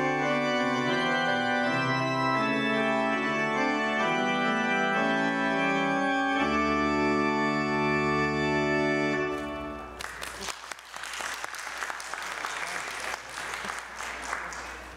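Organ playing sustained chords, closing on a long held final chord that cuts off about nine and a half seconds in. Applause follows and fades near the end.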